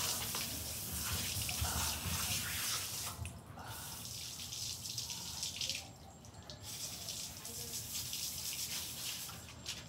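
Garden hose spray nozzle spraying water onto a dog's coat and the wet concrete. The spray is a steady hiss that stops briefly a few times, about three and six seconds in and again near the end.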